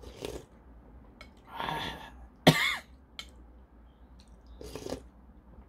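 A man coughing three times while eating ramen broth heavy with chili powder, the sharpest and loudest cough about halfway through; the coughing is set off by the chili.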